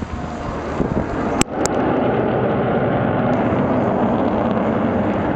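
Jet noise from an Avro Vulcan's four Rolls-Royce Olympus engines heard from the ground, swelling to a loud, steady rushing sound about a second and a half in. There are two sharp clicks just before it swells.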